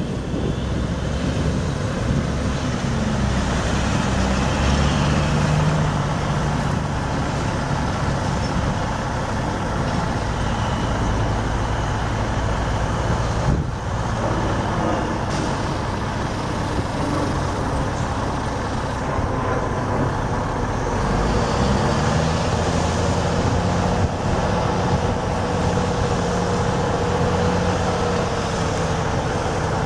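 Mack E7 12-litre inline-six turbo diesel running, its engine speed rising and falling a few times.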